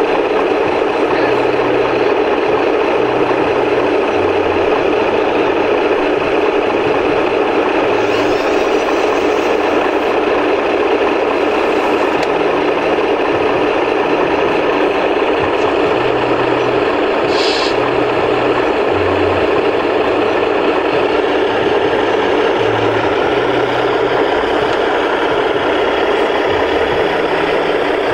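Radio-controlled model tipper truck running its hydraulic pump and engine sound steadily as the tipping body is raised, with a low engine note that steps up and down in pitch every second or so.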